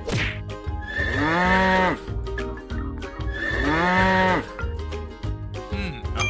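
Background music with a steady bass pulse, carrying two long sliding calls that rise and fall in pitch, about two seconds apart.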